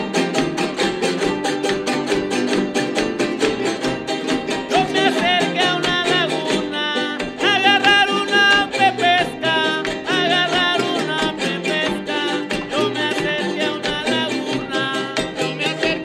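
Son jarocho string music: jaranas strummed in a fast, dense rhythm with a requinto jarocho, and a wavering melody line with vibrato coming in about five seconds in.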